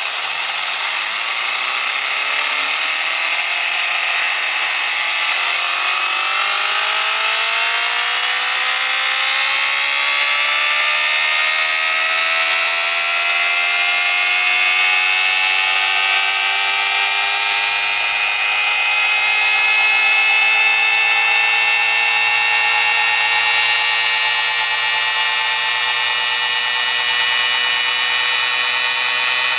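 Compressed-air-driven Tesla turbine and the generator it drives spinning up: a loud hiss of air with a whine that climbs in pitch, fast for the first several seconds and then more slowly, settling near the end as the rotor nears full speed under the load of the lights.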